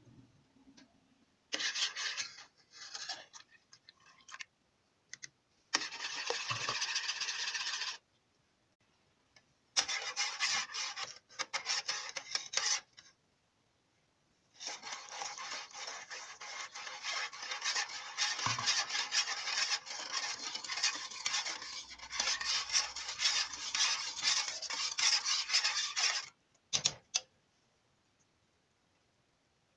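Metal spoon stirring coconut milk in a stainless steel pot, scraping against the pot's bottom and sides in several bursts. The longest stretch of stirring lasts about twelve seconds, and the scraping stops shortly before the end.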